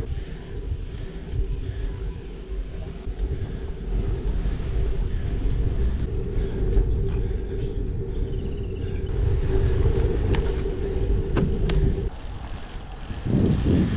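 Wind buffeting the microphone of a camera riding on a moving bicycle, with a steady hum that cuts off suddenly about twelve seconds in. A couple of sharp clicks come shortly before the hum stops.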